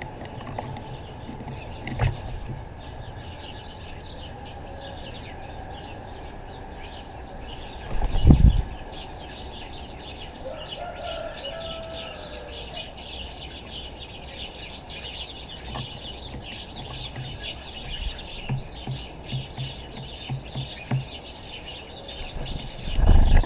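Eurasian collared doves at a wooden feeder, with a loud burst of wing flaps about eight seconds in and another near the end, over steady background noise with many faint high ticks.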